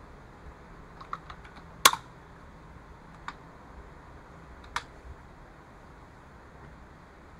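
Scattered clicks from a computer keyboard and mouse: a short run of light taps about a second in, the loudest single click just under two seconds in, then two more single clicks, over a steady low hiss.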